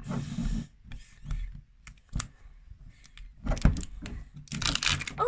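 Paper and plastic wrapping on a toy capsule ball being peeled and torn, rustling at the start and again near the end, with a few sharp clicks and crackles in between.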